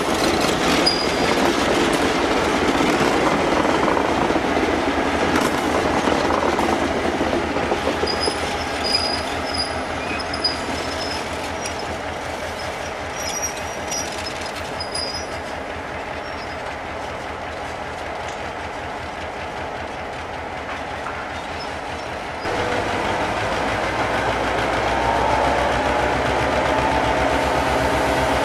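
Diesel locomotives hauling a train of beet wagons: engine running with wheel and wagon clatter, and brief high-pitched wheel squeals about a third of the way through. After a sudden change near the end, a locomotive engine runs steadily as the train draws slowly along.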